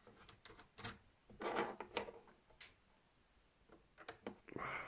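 Handling noise from fitting a part on a turntable: scattered sharp clicks and a few short scraping rubs as a piece is pushed into place, with a louder scrape near the end.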